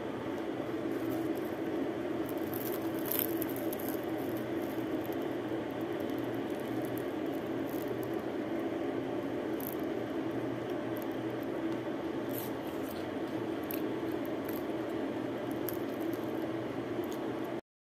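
Steady background noise, with a few faint crisp crackles as a deep-fried chicken samosa's pastry shell is broken open by hand.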